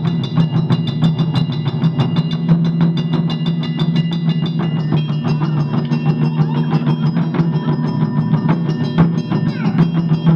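Japanese taiko ensemble drumming a fast, driving rhythm on barrel-shaped chū-daiko drums struck with wooden sticks, with many strokes a second.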